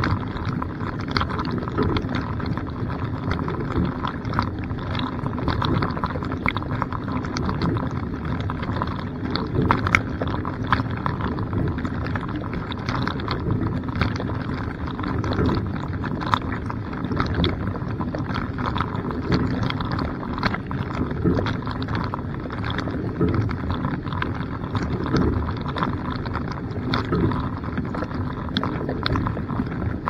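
Dishwasher wash cycle heard from inside the tub: water jets from the spray arms spraying and splashing over the dishes, a steady rush with a constant patter of droplets striking close by.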